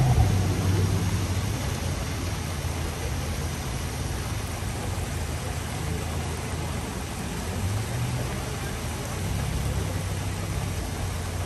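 City street traffic: a vehicle engine's low hum over steady background noise, weakening for a few seconds and coming back about eight seconds in.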